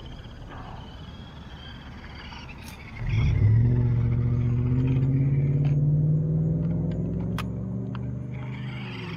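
A toy RC monster truck's brushed electric motor and gears whine as it drives up close. The whine starts suddenly about three seconds in, rises a little in pitch, then eases off near the end.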